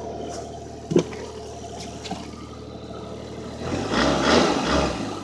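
A vehicle engine idling steadily, with a single knock about a second in and a louder, uneven rumble near the end.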